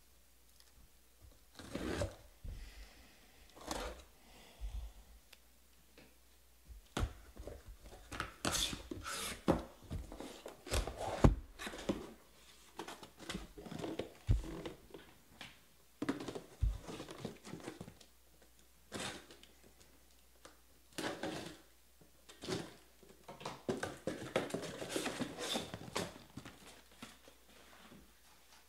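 Utility knife slitting packing tape on a cardboard case, then cardboard flaps and boxes scraping, knocking and being set down in irregular bursts.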